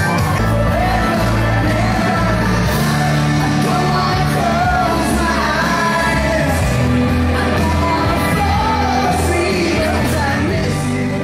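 Loud pop dance music with a singing voice over a steady bass line.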